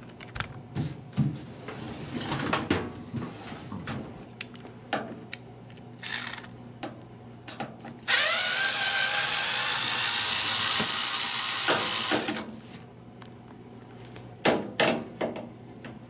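Knocks and clatter from a microwave casing being handled, then a handheld power drill runs steadily for about four seconds, its pitch rising slightly, and stops abruptly. A few more clunks follow near the end.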